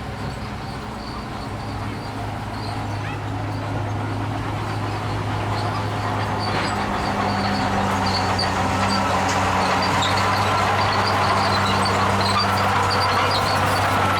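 Heavy earth-moving machinery's diesel engine running steadily, growing gradually louder, with faint short high squeaks scattered through it.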